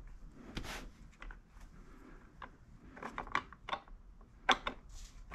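Hard plastic motorcycle fender being handled and fitted with a bolt: scattered clicks, taps and a short scrape of plastic, with a sharper click about four and a half seconds in.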